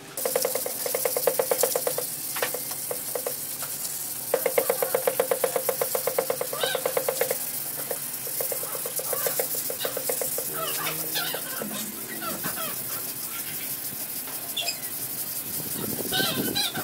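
Sandpaper on a hand sanding block scrubbing a primed car door panel: spells of rapid back-and-forth scratching strokes, the steadiest in the first half. Birds chirp now and then in the background.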